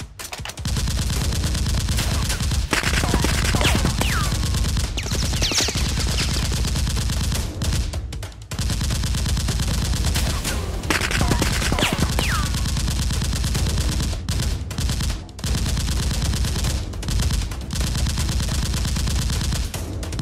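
Rapid automatic gunfire sound effect laid over a Nerf blaster fight: long sustained bursts with a few short breaks. Two falling whistles cut through it, a few seconds in and again about twelve seconds in.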